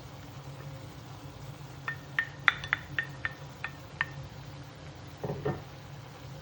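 A utensil clinking against cookware: about ten quick, ringing clinks over two seconds, then a couple of duller knocks, over a steady low hum.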